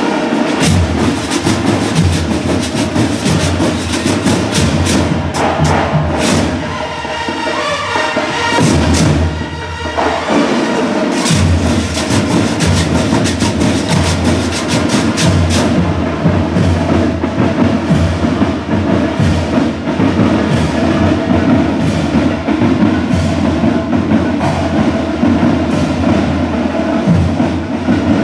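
Marching band percussion playing a fast, steady rhythm: a row of large metal güiros scraped in time over drums.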